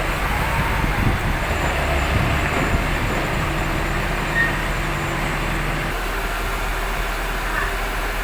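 Heavy diesel engine running steadily with a low drone, which drops about six seconds in. A few faint knocks are heard in the first few seconds.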